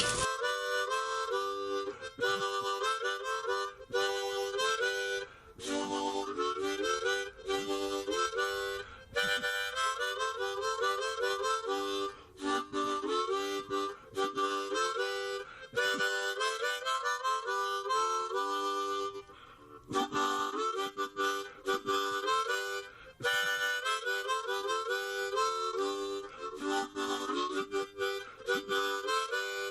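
Instrumental background music: a melody of pitched notes, often several sounding together, changing quickly and broken by short pauses every few seconds.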